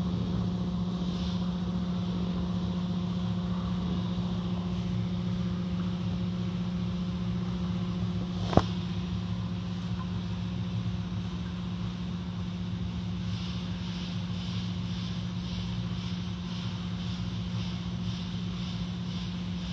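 Automatic car wash heard from inside the car: water spraying and cloth strips and brushes washing over the car, over a steady low hum, with one sharp knock about eight and a half seconds in. In the last third a rhythmic swishing comes about twice a second.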